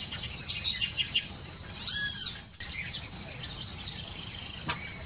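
Parrots chirping: a busy run of short, high chirps, with one louder, drawn-out squawk about two seconds in. A steady high tone runs underneath.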